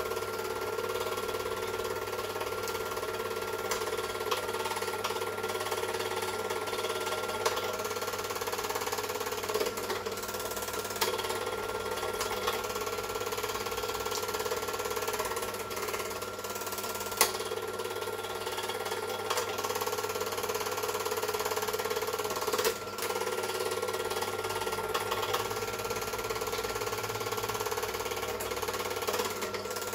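Super 8 film projector running steadily, with an occasional sharp click, the loudest about halfway through.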